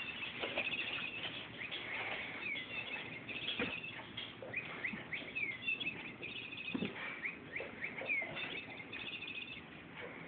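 Bird-like chirping: many short high chirps, quick downward notes and rapid trills, repeated all the way through, with a few soft thuds.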